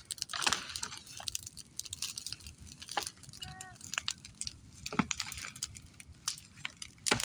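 Irregular sharp crackles and clicks, with a short pitched sound about three and a half seconds in.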